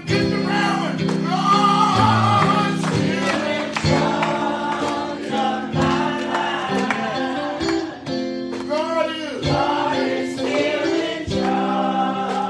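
Live gospel song: voices singing, with sliding vocal runs, over steady sustained instrumental chords.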